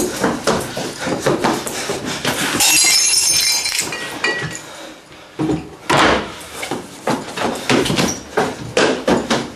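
Quick knocks and steps on a tile floor. About three seconds in comes rattling with ringing glass clinking, as things are rummaged inside a wooden cabinet. Near the end there are more hurried knocks and steps.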